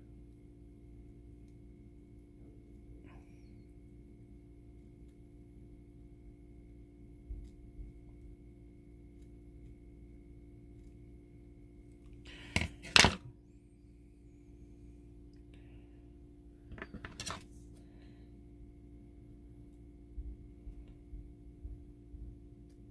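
Small sharp clicks and light knocks from trimming a brass-wire model fence's mesh with a hobby blade on a plywood workbench: two loud sharp clicks about halfway through, a quicker cluster a few seconds later, and soft low thumps near the end, over a faint steady hum.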